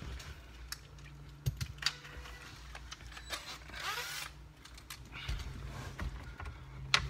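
Scattered light clicks, taps and rustles of a cordless screwdriver and its bit being handled, with a short rustle about four seconds in and a sharp click near the end.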